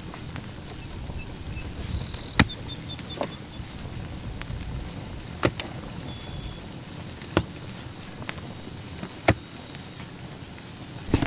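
A hand pick striking hard red soil in the dugout wall, sharp knocks about every two seconds.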